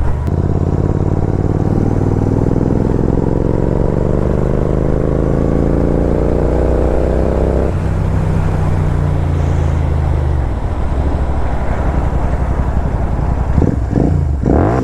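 Royal Enfield Continental GT 650's 648 cc parallel-twin engine through a Red Rooster Performance aftermarket exhaust, accelerating hard. The pitch rises for about eight seconds, drops at an upshift and pulls again, then falls away as the throttle closes, with a few sharp pops (backfire) near the end.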